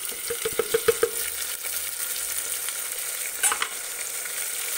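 Chopped tomatoes, onions and ginger-garlic paste sizzling steadily in hot oil in an aluminium pressure cooker, with several sharp clicks in the first second.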